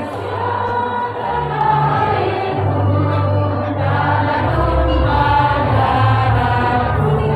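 A women's choir singing together.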